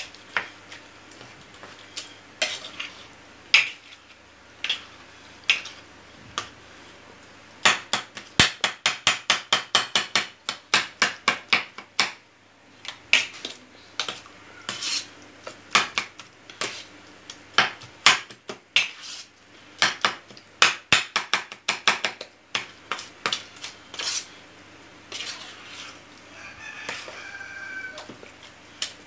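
Metal spoon clinking and scraping against a stainless steel pan while a soft, oily mash of roasted eggplant, tomato and pepper is stirred. There are irregular clinks, with a fast run of about four strikes a second about a third of the way in.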